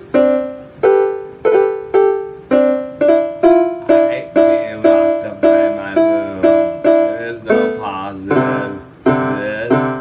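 Instrumental keyboard music in a piano voice: notes and chords struck about twice a second, each fading before the next.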